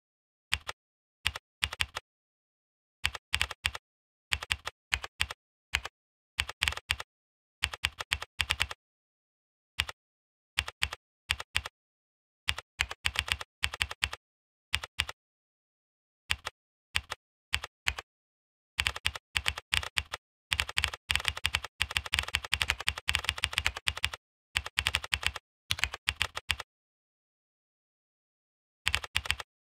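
Typing on a computer keyboard: keystrokes in short bursts separated by pauses, with a longer, fast run of keys past the middle and a pause of about two seconds near the end.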